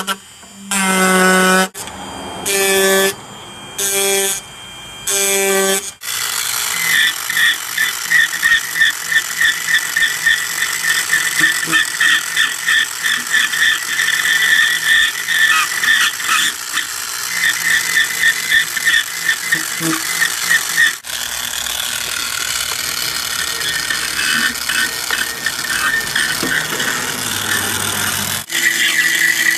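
Electric reciprocating power carver chiselling wood, a rapid mechanical chatter with a squeal that continues with short breaks. It opens with five short buzzing tones.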